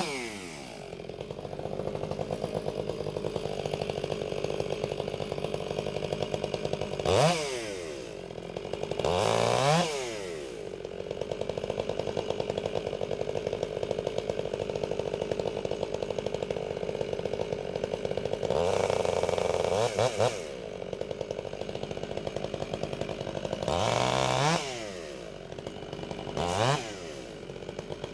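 Two-stroke chainsaw mostly idling while bucking a cherry log, revved up and back down in short throttle blips several times. There is one longer run of about two seconds at high revs roughly two-thirds of the way through.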